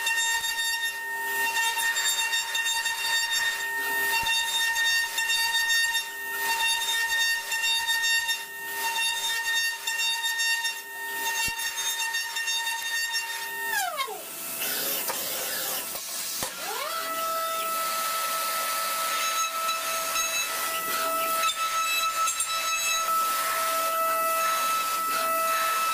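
CNC milling machine cutting an aluminium block: a steady high spindle whine over the hiss and crackle of the cut. A little past halfway the whine falls away as the spindle stops. It then rises again and holds at a higher pitch, with a thinner end mill in the spindle.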